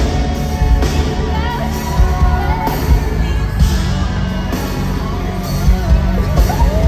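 Loud live pop-rock music over a concert PA system: drums, electric guitar and a woman singing.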